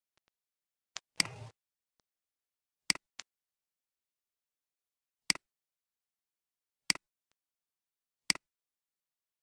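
Computer mouse button clicks: about seven sharp clicks at irregular intervals, with a brief scraping rustle just after the second one about a second in.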